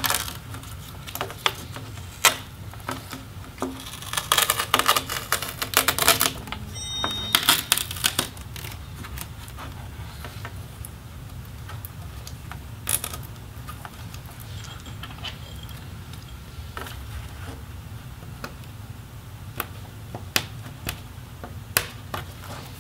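A laptop display's video cable being pulled out of its plastic routing grooves and peeled off its adhesive on the back cover: scattered clicks and crinkly rustles, louder in stretches a few seconds in, over a steady low hum.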